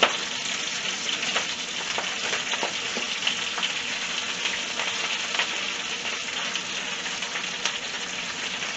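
Fresh spinach sizzling in hot olive oil in a frying pan as it wilts: a steady hiss with scattered small pops and crackles.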